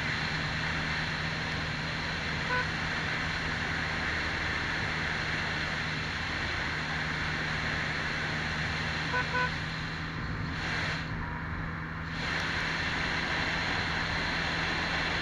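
Engine of a Can-Am Spyder F3S, a Rotax 1330 three-cylinder, running steadily at cruising speed under heavy wind and road noise. The high wind hiss drops for a second or two about ten seconds in. Short pips come about two and a half seconds in and twice more about nine seconds in.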